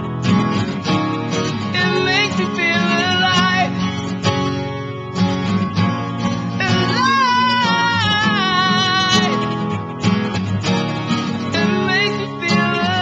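A song with strummed guitar and a voice singing, some notes held and wavering.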